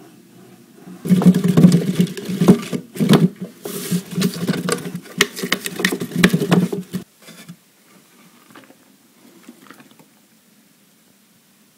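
Homebuilt apple grinder grinding apples, a steady low drone with many irregular cracks and knocks of apple pieces being crushed. It starts about a second in and stops suddenly about seven seconds in.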